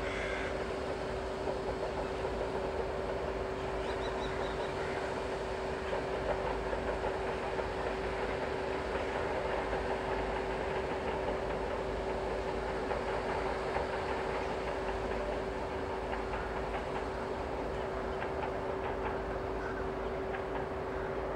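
A train running steadily: an even rumble and hiss with a constant steady hum under it, and light clicking toward the end.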